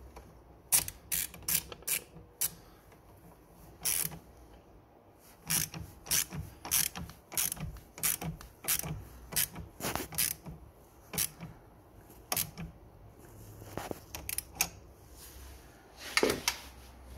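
Hand ratchet clicking in short quick runs as it turns the clamp nut on a car battery terminal through a socket extension. There is a brief pause past the middle, then a few more clicks near the end.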